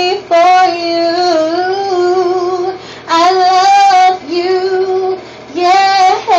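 A single high voice singing unaccompanied in a tiled bathroom, holding long wavering notes in three phrases with two short breaks.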